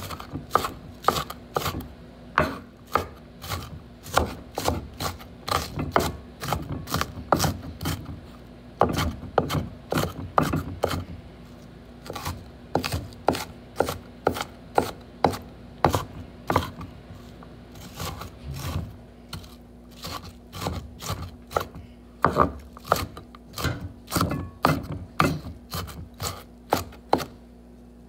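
Large kitchen knife chopping onion on a wooden cutting board: a run of quick sharp knocks, about two or three a second, with a short pause a little past halfway.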